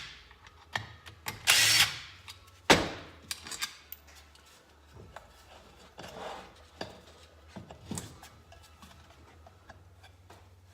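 Power driver spinning briefly to back out Phillips screws from a small-engine cover, between sharp metal clicks and taps of parts being handled. The loudest sound is a single sharp click a little under three seconds in.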